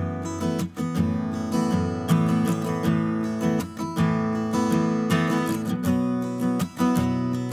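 Background music: strummed acoustic guitar at a steady rhythm.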